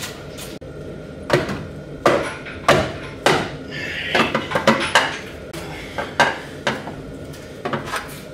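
Mallet knocking on the intake parts of an Audi RS3 engine to loosen the intake plenum: a series of irregular sharp knocks with some metallic clatter of parts between them.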